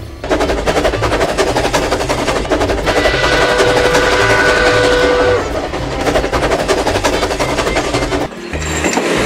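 Toy steam train running on plastic track: a fast, steady clatter, with a whistle-like tone held for about two seconds in the middle.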